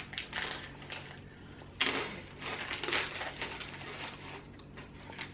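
Crunching of Hula Hoops potato-ring crisps being chewed, with irregular crackles and a couple of sharper crunches, over the crinkle of small snack packets being handled.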